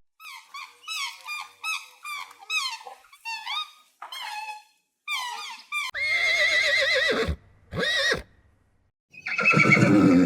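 Farm animals calling: a rapid run of short, repeated calls, about three a second, then from about six seconds in three longer calls with a wavering, quavering pitch.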